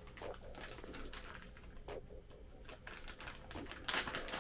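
Scattered light clicks and rustles of small packed accessories being handled, with a brief louder rustle near the end.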